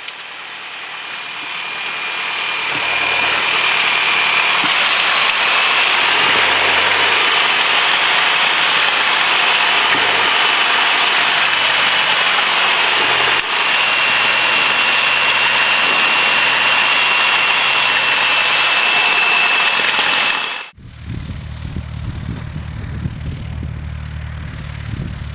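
Cessna 172P's four-cylinder Lycoming engine and propeller heard from inside the cabin, growing louder over the first few seconds as power is added to taxi, then running steadily. About 21 seconds in it cuts off abruptly to an outside recording: a low rumble as a Cessna taxis past.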